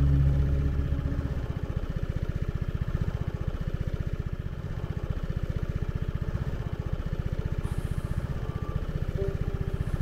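Motorcycle engine idling with an even, rapid low pulse. Background music fades out in the first second and a half.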